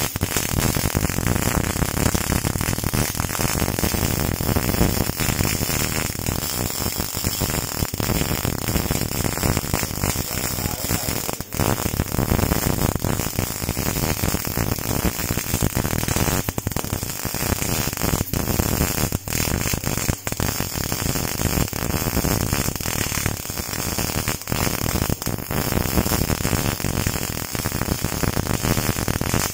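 MIG welding arc crackling steadily, a continuous dense sizzle with a few brief dropouts where the arc breaks.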